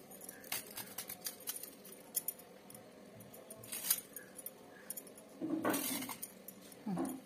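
Bangles jingling on the wrists in light, separate clinks as a raw banana is peeled with a knife, with a louder brief scraping rustle a little past halfway.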